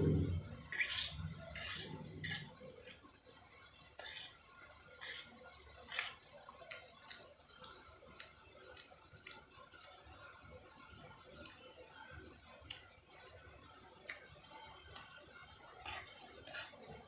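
Cutlery clicking and scraping against a plate or bowl while noodles are eaten: a string of short, sharp clinks, frequent in the first few seconds and sparser after.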